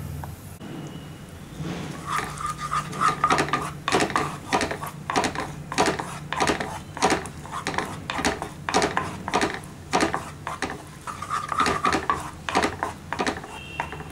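Wooden spatula scraping and stirring in a nonstick pan, in repeated strokes about two a second, as the sugar melts into caramel around fried cashews.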